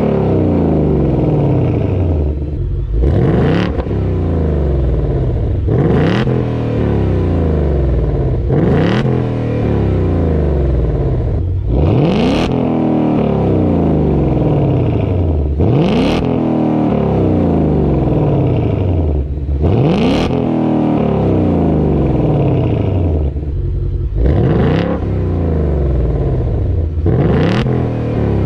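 2020 Ford Mustang GT's 5.0 V8 through its active exhaust with a Steeda H-pipe in place of the resonator, accelerating hard: the engine note rises in pitch and drops back sharply every three to four seconds, as it upshifts through the gears. A deep, loud exhaust tone without rasp.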